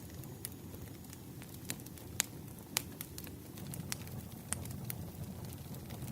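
Wood fire crackling: a steady low rumble with sharp, irregular pops and snaps, two of them louder, about two seconds in and a little before three seconds.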